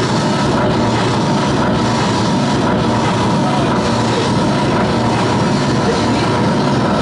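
Harsh noise music: a dense, unbroken wall of distorted noise with a few droning tones held inside it.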